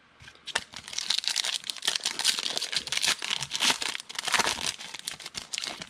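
A foil football trading-card pack being torn open and its wrapper crinkled in the hands: a dense crackle of plastic foil that starts about half a second in and lasts about five seconds.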